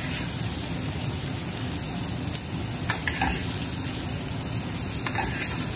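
Onion, tomato and capsicum sizzling steadily in oil in a frying pan, with a few light clicks.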